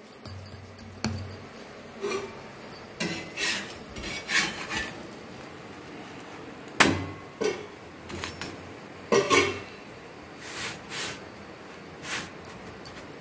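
Hands patting and pressing rice-and-jowar-flour rotti dough flat, with scattered knocks and clinks. The loudest is a sharp knock about seven seconds in, and two more come close together around nine seconds.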